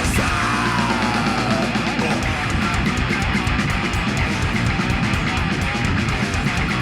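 Live three-piece rock band playing a fast, heavy song: electric guitar, bass and drums, with rapid drum strokes.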